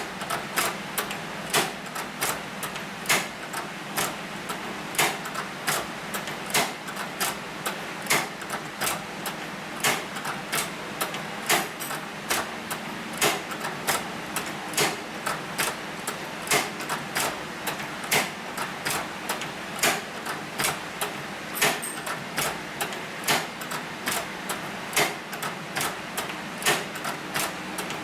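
Hand-crank leather sewing machine stitching at a slow, steady pace, its mechanism giving a sharp click with each stitch, about one and a half clicks a second.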